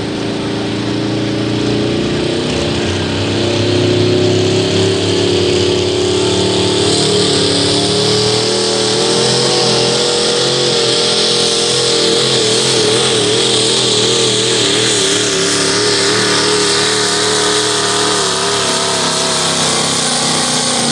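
Pro stock diesel pulling truck's engine running hard under full load through a pull. The engine note climbs slowly at first, then wobbles up and down through the second half.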